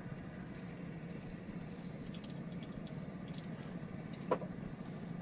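An engine running steadily at a constant speed, giving a low even hum, with one brief higher-pitched sound about four seconds in.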